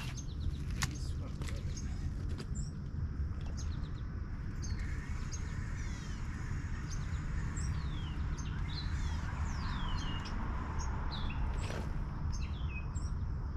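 Birds chirping with many short, quick downward-sweeping calls over a steady low outdoor rumble, with a few sharp clicks.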